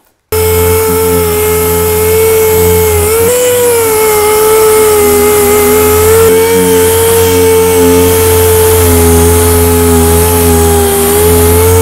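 Random orbital sander running at speed with a steady high whine, scuff-sanding cured fiberglass on a car hood scoop. It starts abruptly just after the beginning, and the pitch dips slightly once or twice as the pad loads against the surface.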